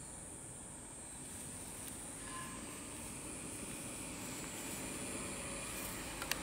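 Outdoor ambience: a steady high-pitched insect drone that stops near the end, under a low distant engine rumble that slowly grows louder. A couple of sharp clicks just before the end.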